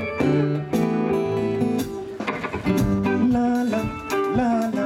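Live band music: guitar and drums playing between sung lines.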